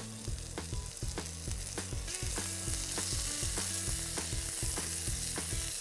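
Green beans, soya chunks and button mushrooms sizzling in butter in a frying pan while being stirred with a wooden spatula. The sizzle grows louder about two seconds in.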